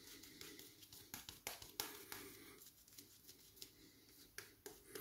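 Boar-bristle shaving brush scrubbing lather onto the face: faint, irregular scratchy strokes, several a second.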